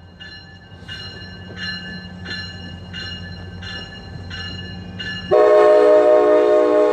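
A bell dings steadily, about once every 0.7 s, over a low rumble. About five seconds in, a locomotive's Nathan K5LA five-chime air horn starts up loud and holds a steady chord.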